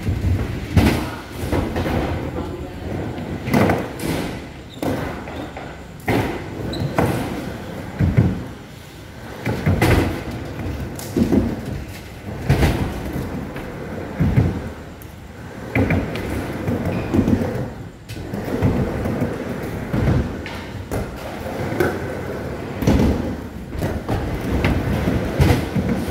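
Skateboard riding a ramp: the wheels rumble steadily and the board knocks and thuds every second or two as the skater goes up and down the transitions.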